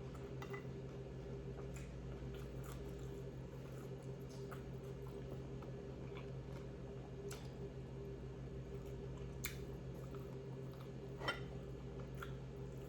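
Close-up chewing of crunchy food, with scattered sharp crunches, the loudest around a third and four fifths of the way through, over a steady low hum.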